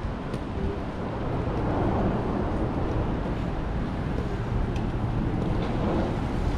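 City street ambience: a steady rumble of road traffic with faint voices of passers-by in the background.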